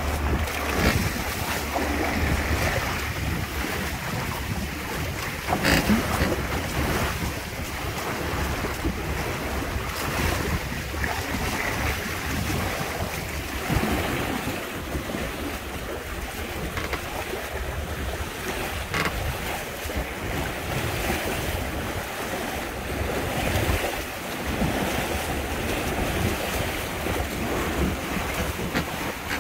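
Wind buffeting the microphone over the steady rush and slap of water along the hulls of a Windrider 17 trimaran under sail, with a few sharper splashes.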